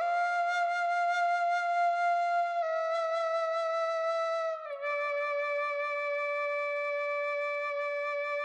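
Background music: a solo flute-like melody of long held notes, each a step lower than the one before, the last held about four seconds.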